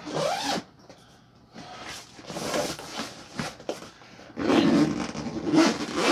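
Zipper on a Ravin soft crossbow case being pulled in a few long strokes, with the case's nylon fabric rustling as a box is packed inside.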